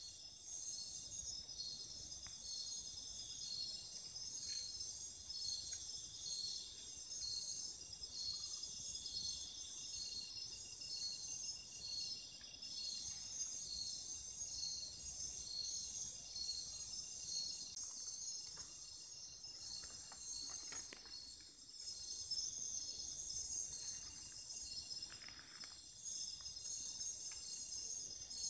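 Night chorus of crickets and other insects: a steady, high-pitched trilling with a slow, regular pulse, with a few faint rustles about two-thirds of the way in.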